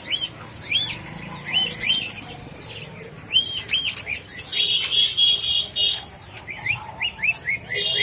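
Caged budgerigars chirping: short rising-and-falling calls, one every half second or so, coming faster near the end. About midway a steady shrill tone holds for about a second and a half.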